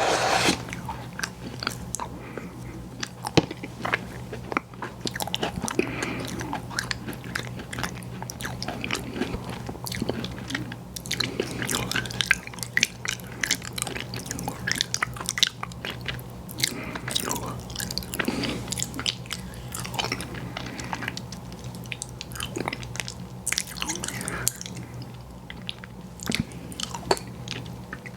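Close-miked ASMR eating of ice cream and cookie desserts: irregular bites, crunching and wet chewing, with mouth clicks and smacks. A steady low hum runs underneath.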